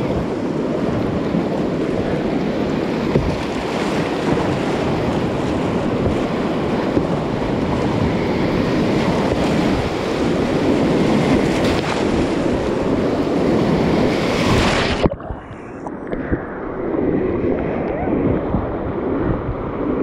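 Whitewater rapid rushing and splashing around a kayak running through it, with wind buffeting the microphone. About fifteen seconds in the sound suddenly turns muffled and quieter.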